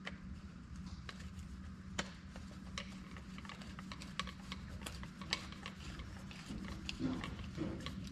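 Manual lever-action grease gun being worked on a combine header's grease fittings: irregular sharp metal clicks and ticks, a few each second, over a steady low hum.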